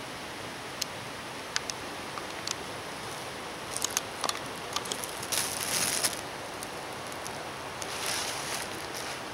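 Dry fallen leaves crackling and rustling underfoot: a few sharp crackles, then two bursts of rustling steps, over a steady hiss.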